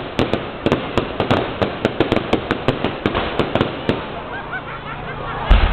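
Fireworks display: a rapid run of sharp crackling bangs, several a second, then a deeper low boom near the end.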